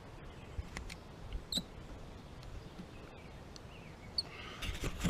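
Faint scattered clicks and handling noise as a CV boot band is wound tight with a hand banding tool, with two short high squeaks; the handling grows busier near the end.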